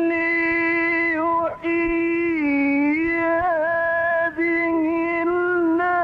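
Male Quran reciter's voice holding long, drawn-out melodic notes in the Egyptian tajweed style, with small ornamental turns in pitch and two brief breaks for breath.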